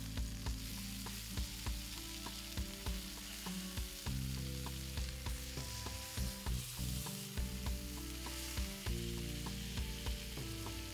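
Bacon-wrapped chicken breasts sizzling in hot oil and butter in a frying pan, with frequent small pops and crackles. Metal tongs shift the breasts in the pan.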